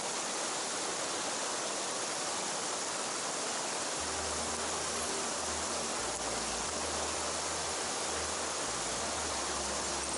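Mountain stream water rushing steadily, with a faint low rumble joining about four seconds in.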